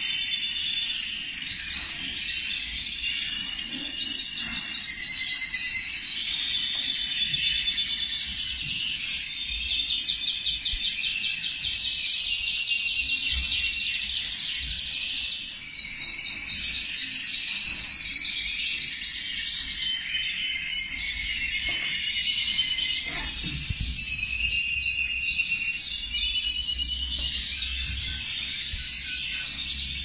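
Yellow-black mosaic canary singing a long, unbroken high song of warbles, with fast trills of rapidly repeated notes.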